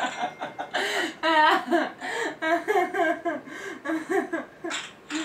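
Giggling and chuckling laughter, in short repeated bursts, over a sputtering fart sound effect played from a soundboard that is still running.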